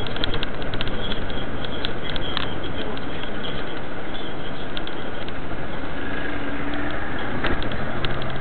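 Steady road and engine rumble of a moving car, heard from inside the cabin through a dash camera, with scattered light ticks over the first few seconds. A short steady hum joins about six seconds in.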